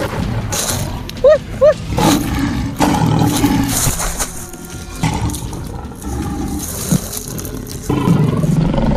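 Lion growling and roaring, a rough, noisy sound that swells and fades, with two short, loud pitched cries about a second and a half in.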